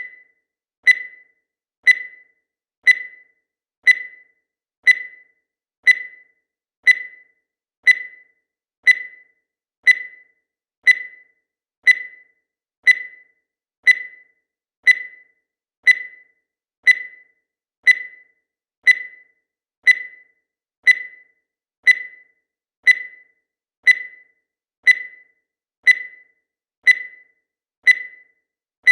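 Digital timer beeping once a second: a short, high-pitched electronic beep that starts sharply and dies away quickly, repeating at a perfectly even pace.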